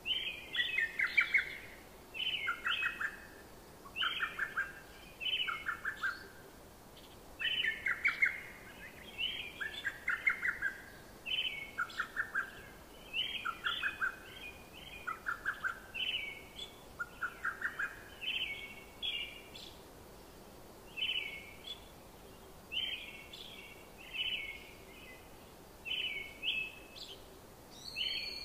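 Birds chirping: short, quick trilled phrases that repeat every second or two.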